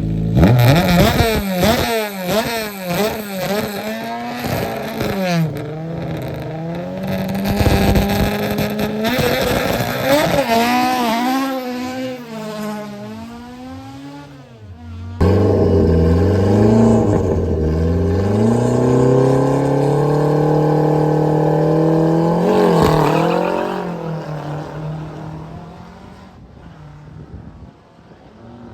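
Historic rally car launching from the stage start, its engine revving up and dropping again at each gear change as it pulls away into the distance. Partway through, a second car holds its engine on steady high revs at the line, then launches and fades away.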